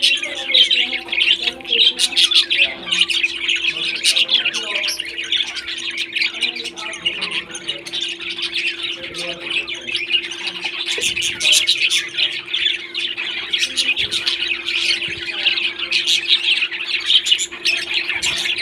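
A group of pet parrots chattering and squawking continuously, many overlapping short calls. A steady low hum runs beneath.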